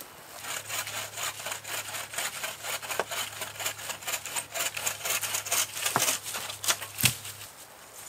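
A hand saw cutting through a wooden branch in steady back-and-forth strokes, about four a second, stopping about a second before the end.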